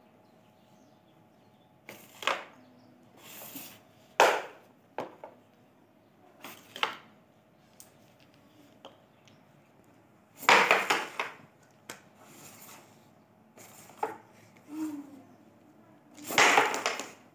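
Carrom game: the striker flicked across a wooden carrom board, clacking into the wooden carrom men and knocking them against each other and the frame. A string of sharp wooden clicks, with longer clattering bursts about ten and sixteen seconds in.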